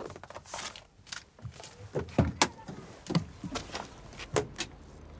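A loose, irregular series of about a dozen short knocks and clicks.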